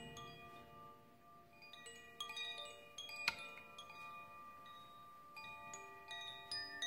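Chimes ringing softly: scattered single notes struck at irregular moments, each ringing on and overlapping the others. One sharper, louder strike comes about halfway through.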